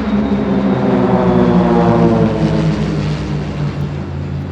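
Pilatus PC-7 turboprop aircraft flying past low in formation. The engine and propeller sound swells to its loudest about two seconds in, then drops in pitch and fades as the formation passes.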